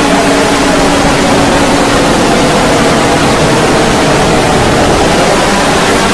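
Emergency alert alarm: loud static-like hiss over a low droning tone that fades out within the first couple of seconds, leaving steady static.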